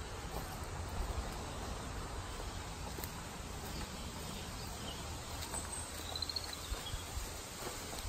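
Footsteps pushing through woodland undergrowth, over a steady low rumble and hiss, with a brief high bird trill about six seconds in.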